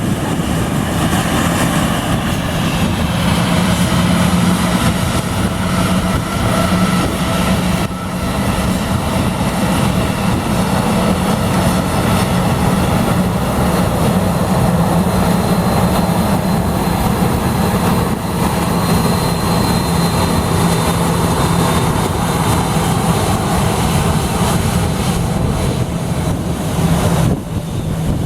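Airliner engines at takeoff power: a loud, steady drone with a strong low hum, holding level for many seconds.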